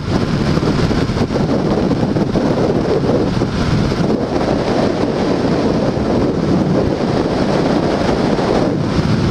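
Loud, steady wind rush over a GoPro's microphone on a Honda Shadow 750 cruising at highway speed, with the motorcycle's V-twin engine running underneath.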